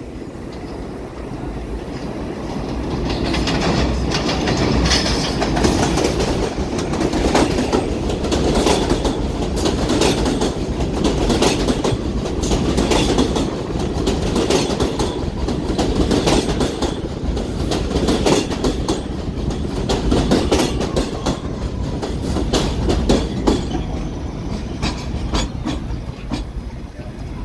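R211 subway train running along the track, its wheels clacking over rail joints with a steady rumble. It grows louder over the first few seconds and eases off near the end.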